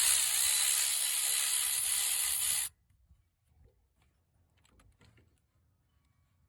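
Cordless electric ratchet running, spinning out a 12 mm alternator bracket bolt for about two and a half seconds before stopping abruptly; a few faint clicks of tool and bolt handling follow.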